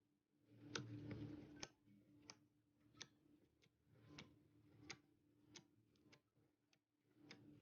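Faint, irregular little clicks and pops from slime being handled, about one every half second to second, over a low steady hum.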